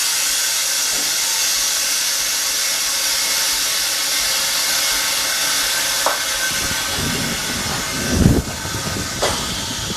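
Steady hiss of compressed air escaping from an OCA bubble remover (pressure debubbling chamber) as its bubble-removal cycle nears its end, easing off over the last few seconds. A few knocks and low thuds of handling come in the second half.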